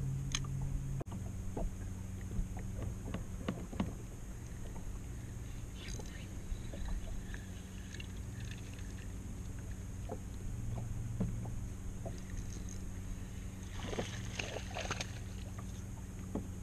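A steady low hum from the bass boat, with scattered light clicks and knocks and a brief rush of noise about fourteen seconds in.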